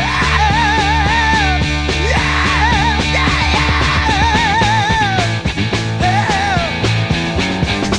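Psychedelic rock music: a lead line held in wide vibrato and bent notes over bass and drums.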